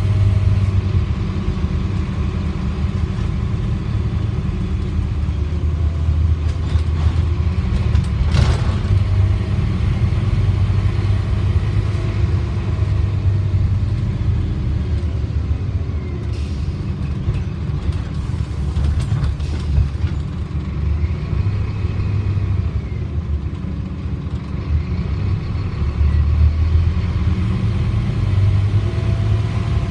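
Scania OmniDekka double-decker bus on the move, heard from the upper deck: a steady low engine and road rumble, with faint whines that rise and fall as the bus changes speed. A sharp knock sounds once, about eight seconds in.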